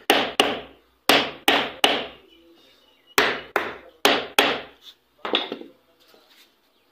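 Hammer striking a wooden block held against a water pump motor's end plate, about ten sharp knocks in quick groups of two or three, driving the plate with its new bearing onto the motor body. The knocks stop about five and a half seconds in.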